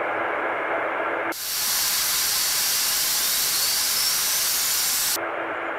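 GE9X turbofan jet engine running on an outdoor test stand: a steady rush of noise with a low hum. About a second in it switches to a sharper, hissing rush with a faint whine rising through it, then drops back to the duller rush near the end.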